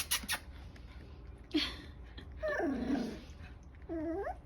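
Five-week-old cockapoo puppies squealing and yelping while play-wrestling: three separate cries, the longest around the middle and a short rising yelp near the end. It is the squawk of a pup being bitten in rough play, which is normal play as the pups learn appropriate play.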